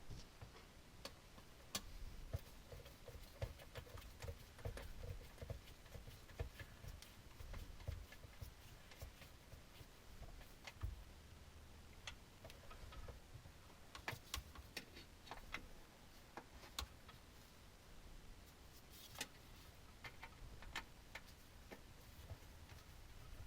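Near silence, with faint scattered clicks and ticks over a low rumble.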